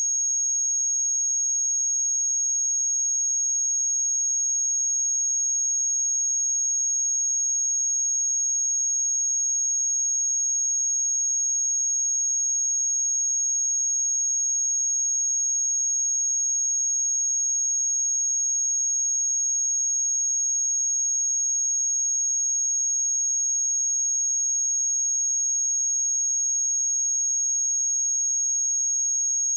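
A single steady high-pitched sine-wave test tone at 6558 Hz, held at constant loudness.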